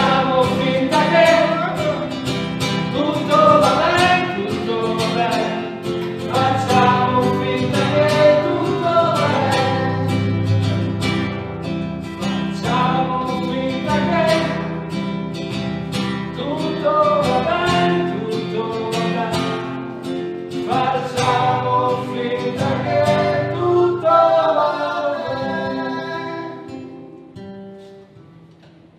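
Acoustic guitar strummed steadily under a singing voice carrying the melody. The music fades away over the last few seconds.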